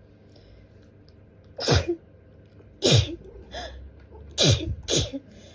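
A person sneezing four times in a fit: two sneezes a little over a second apart, then two more in quick succession. The dust in the air is tickling their nose.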